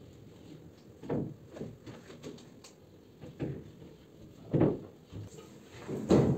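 Irregular knocks and bumps from gypsum board pieces being handled and pressed against a ceiling during installation, about five in all, the two loudest in the second half.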